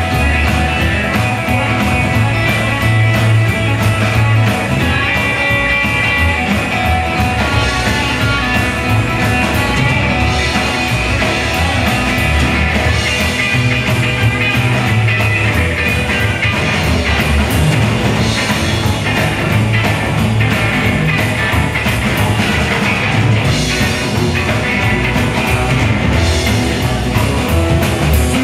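Live band playing rock and roll on electric guitar, upright double bass and drum kit, loud and without a break.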